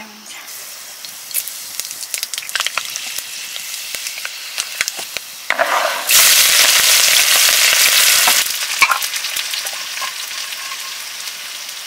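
Food frying in hot oil in a cooking pan for a curry, crackling with scattered pops, then a sudden loud sizzle about six seconds in that eases off over the following seconds.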